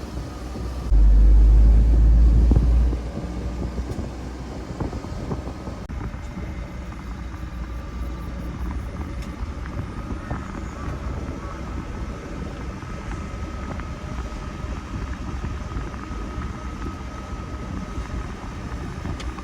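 A pile of dry cut weeds burning, with a dense, steady crackle of small pops. A loud low rumble comes about a second in and lasts about two seconds.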